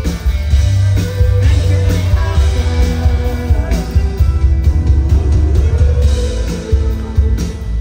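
Live rock band playing, with a singer's melody over loud bass.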